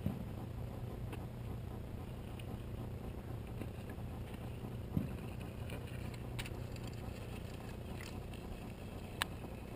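Steady low rumble from the camera moving outdoors, with a few sharp clicks about five and nine seconds in.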